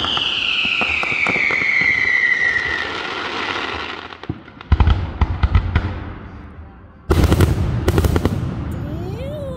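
Fireworks going off: a whistle that falls steadily in pitch for about four seconds over light crackling, then a rapid string of sharp cracks around five seconds in, and a second loud volley of bangs about seven seconds in.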